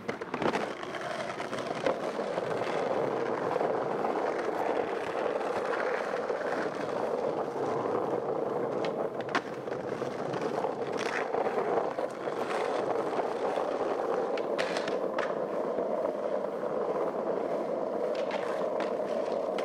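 Skateboard wheels rolling over paving, a steady rough rumble, broken several times by sharp clacks of the board hitting the ground.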